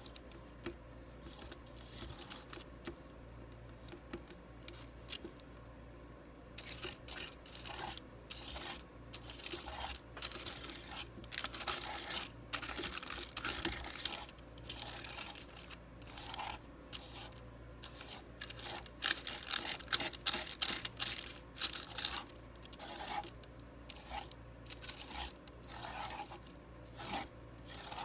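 Palette knife scraping and smearing thick oil paint across a plastic-covered palette in irregular strokes. The strokes are sparse at first, then come thicker and louder from about six seconds in.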